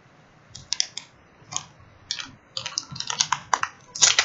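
Crinkly plastic wrapper of a Kit Kat being torn open and handled: a few sharp crackles at first, then a dense run of crackling from about two and a half seconds in, loudest near the end.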